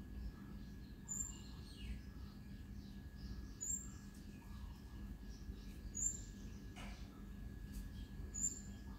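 Birds chirping: a short, high chirp repeats about every two and a half seconds, with fainter twittering between, over a low steady hum.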